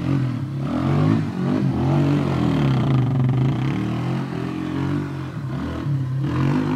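Four-wheeler (ATV) engine revving up and falling back over and over as it is driven hard in circles on dry ground.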